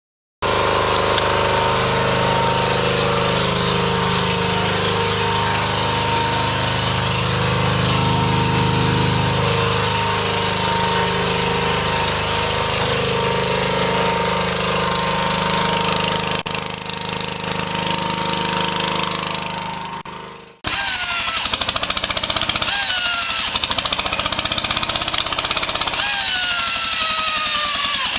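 Loud engine-driven power tool running steadily with a humming motor note. After a sudden break about twenty seconds in, a rapid rattling follows, with a whine that rises repeatedly every couple of seconds.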